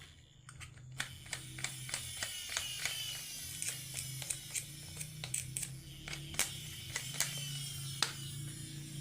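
Marbles rolling and clacking down a wooden marble run, many quick irregular clicks over a faint rolling whir, with a steady low hum beneath from about a second in.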